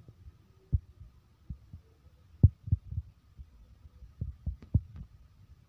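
Handling noise on a handheld phone microphone: irregular dull low thumps and bumps as the phone is moved and touched, the loudest about halfway through and a quick run of them near the end, over a faint steady high tone.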